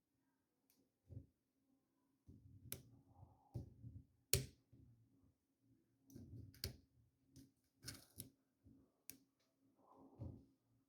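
Faint, irregular clicks and small metallic taps from a lock pick and tension tool working the pins in the keyway of a Master Lock 1921D padlock held in a vise. A few sharper clicks stand out among the softer ticking.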